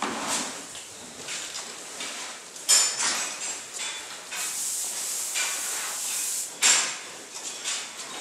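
Metal clanking and rattling in a cow barn as a feed cart is pushed along the feed alley past cows at steel feed barriers. There are two sharp, loud clanks, about a third of the way in and again near the end, with a steady rush for about two seconds between them.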